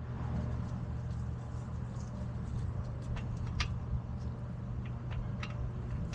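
A car engine idling steadily, with a few faint light clicks.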